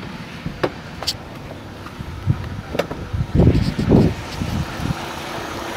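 Chevrolet Optra 1.8 four-cylinder engine idling steadily, its timing belt just reset, heard amid handling noise: scattered clicks and two strong low thumps about three and a half to four seconds in. The idle grows louder near the end.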